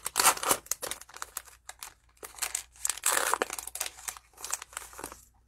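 Plastic wrapper of a 2020 Prizm football cello pack crinkling and tearing in irregular crackles as it is ripped open and peeled off the stack of cards.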